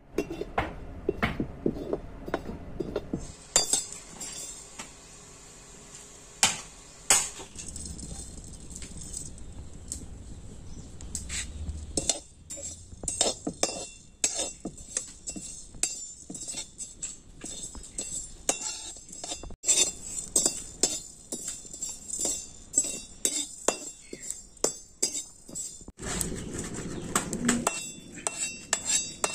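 Perforated steel spatula scraping and clinking against an iron kadai as whole spices, black pepper among them, are stirred dry in the pan, the seeds rattling over the metal. Near the end the spices slide out of the tilted pan in a short rush.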